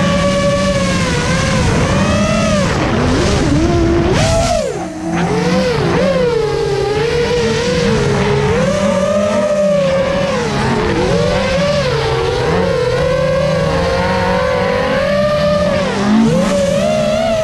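FPV racing quadcopter's motors whining, the pitch rising and falling constantly with the throttle. A lower engine note from the Mk II Ford Escort race cars runs underneath.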